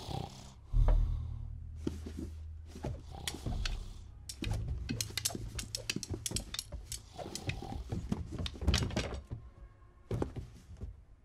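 Cartoon sound effects: a heavy low thud about a second in, then a run of quick sharp taps and knocks over a low rumble.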